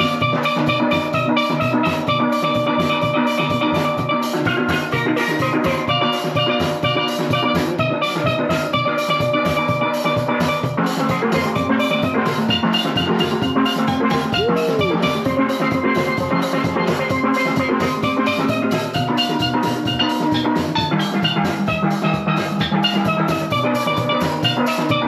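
A steel band playing: several steel pans struck with mallets over a drum kit, in a fast, steady rhythm.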